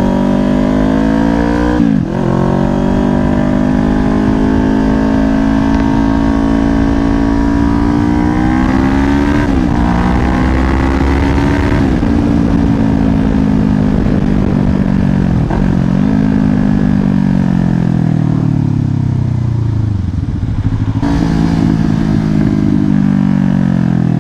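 2024 Kawasaki Ninja 500's parallel-twin engine under way, with wind rumble on the helmet mic. The engine note climbs and then drops sharply several times as the rider shifts gears, about two seconds in and again near ten and sixteen seconds. It falls away as the bike slows near the end, then picks up again.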